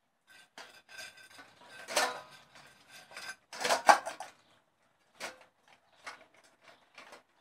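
Stainless steel food bowls clinking and clattering as a litter of German Shepherd puppies eats from them and knocks them about, some in a metal bowl stand. Irregular clinks with two louder clanks, about two and four seconds in, then a few scattered clinks.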